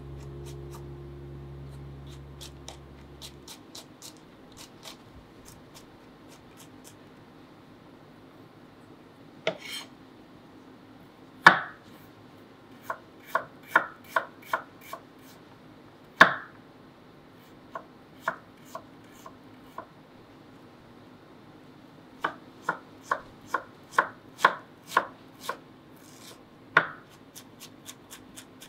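Kitchen knife chopping garlic and ginger on a wooden cutting board: scattered single cuts at first, then a quicker run of chops near the end.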